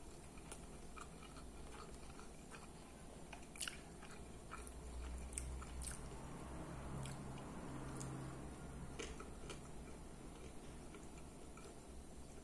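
Close-miked chewing with the mouth closed, with scattered light clicks of a metal fork against a glass plate.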